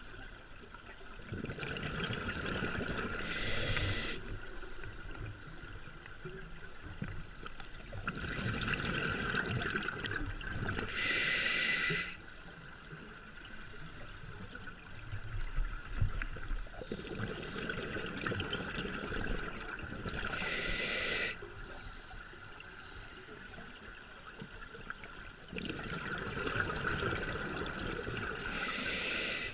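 Scuba diver breathing through a regulator underwater: four slow breaths, each a drawn hiss followed by a brief rush of exhaled bubbles, about every eight seconds.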